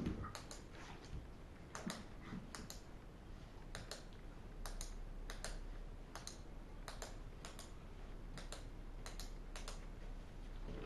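A dog working a sniffing search: short, sharp sounds in quick pairs, about one pair a second, slightly irregular.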